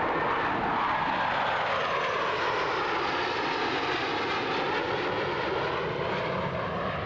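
Jet engines of a McDonnell Douglas F-4S Phantom II and two Grumman F-14A Tomcats flying by in formation: a loud, steady rush of jet noise. A hollow whooshing tone sweeps down and then back up as the jets pass.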